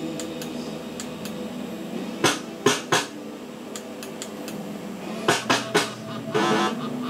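JPM fruit machine playing two spins: its three reels stop one after another with three sharp clunks about two seconds in, then three more about five seconds in, over the machine's steady electronic tones. A brief buzzing sound follows near the end.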